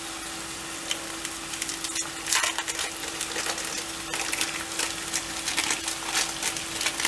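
Ground beef and fried eggs sizzling in a stainless steel frying pan on a gas burner, a steady hiss with frequent small crackles and pops.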